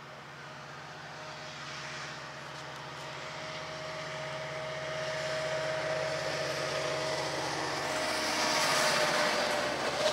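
Sounder commuter train's diesel locomotive approaching at very slow speed, its engine running with a low steady hum and a held tone, growing steadily louder as it nears. Near the end a broader rushing rail noise builds as the locomotive and bilevel cars roll past.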